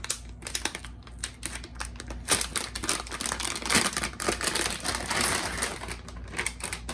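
Metallic anti-static bag crinkling and rustling as it is worked off a graphics card, a run of irregular crackles with a few sharper crunches.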